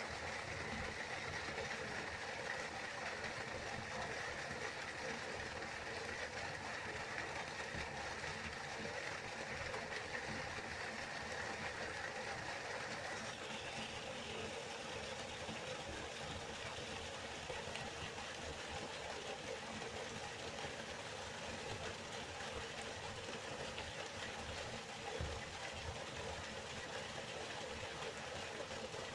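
A river flowing, a steady, even rush of water. Its tone changes slightly about 13 seconds in, turning a little brighter.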